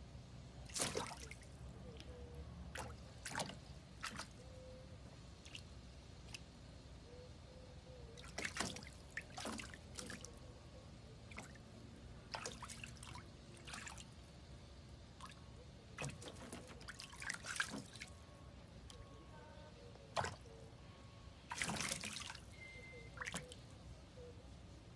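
Serval pawing at shallow water in a plastic tub: irregular light splashes and drips, some in short clusters, every second or two.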